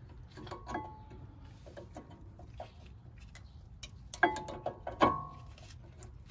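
New steel-backed brake pads being slid into a Honda Pilot's front caliper bracket and its clips, metal on metal: a string of light clicks and clinks, with two louder ringing clanks about four and five seconds in.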